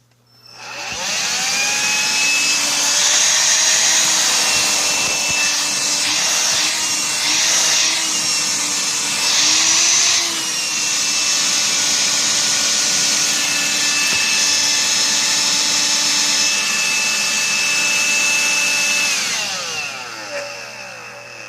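Electrolux ZB3111 18V cordless stick vacuum switched on and run on its newly rebuilt lithium battery pack: the motor whines up to speed, runs steadily with a few brief dips and rises in pitch around the middle, then is switched off and spins down near the end.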